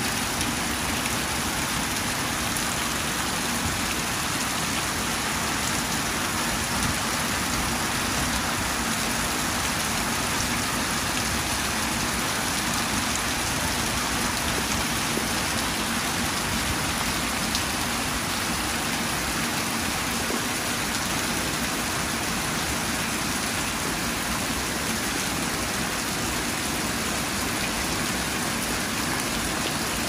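Heavy storm rain pouring down steadily, a continuous even hiss of rain on the ground and foliage.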